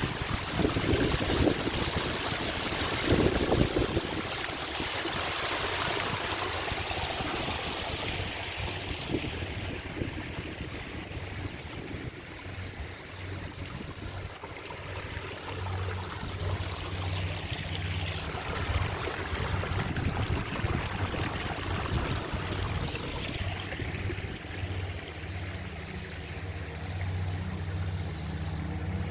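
Waterfall water rushing steadily, with wind buffeting the microphone in the first few seconds. A low, steady hum joins in about halfway through and carries on.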